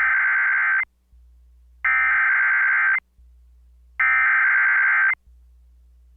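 Emergency Alert System SAME header: three identical bursts of buzzy digital data tones, each about a second long and about a second apart, carrying the coded tornado-warning alert (event code TOR) that precedes the attention tone.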